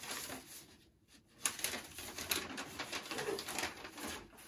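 Paper rustling and crinkling as a large folded instruction sheet is unfolded and handled, with a brief lull about a second in.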